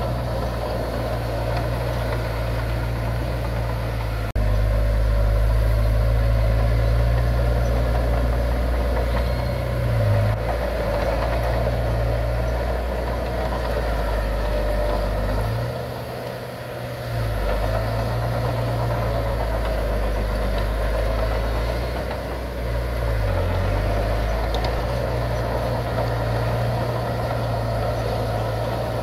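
Heavy earthmoving machine's diesel engine running with a low rumble. It gets louder suddenly about four seconds in, eases off briefly around the middle, then picks up again.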